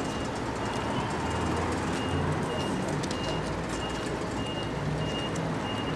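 Steady low engine rumble of nearby traffic, with a faint high-pitched beep repeating about one and a half times a second.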